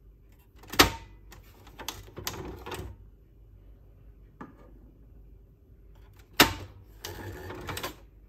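Plastic ink cartridges being unlatched and handled in a Canon PIXMA MG2960's print carriage. There are two sharp plastic snaps about five and a half seconds apart, each followed by about a second of light clicking and rattling, with a faint click between them.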